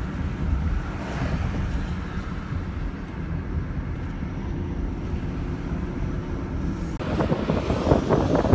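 Steady low road and engine rumble inside a moving vehicle. About seven seconds in it cuts abruptly to louder, gusty wind buffeting the microphone.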